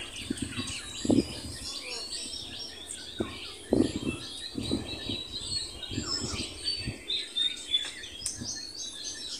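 Small birds chirping and twittering in a busy, overlapping chorus of short high calls, with a few short soft knocks, the loudest about a second in and again near four seconds in.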